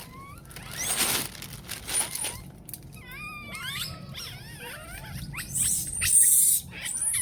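Monkeys calling: a run of short, high-pitched wavering squeals and chirps, with louder harsh noisy bursts about a second in and again near six seconds.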